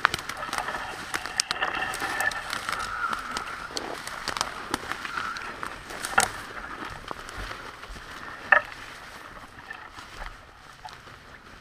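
Footsteps swishing and crunching through tall dry grass and weeds, stems brushing against clothing, with many small crackles and a few sharp snaps.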